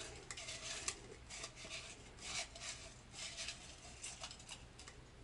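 Folded paper entry slips being shaken in a ceramic mug for a prize draw: a faint, irregular run of short rattles and scrapes that dies away near the end.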